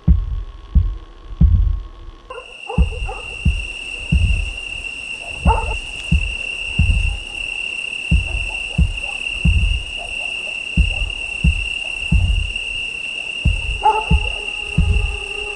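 Horror film sound design: low, heavy thumps about twice a second, like a slow heartbeat. About two seconds in, a steady high-pitched ringing drone joins them and holds, while a few lower held tones return near the end.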